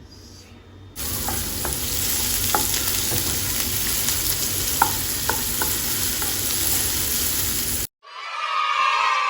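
Chopped ingredients sizzling as they fry in a pan, stirred with a utensil that clicks against the pan now and then. The sizzle starts suddenly about a second in and cuts off abruptly near the end, when a brief, different sound follows.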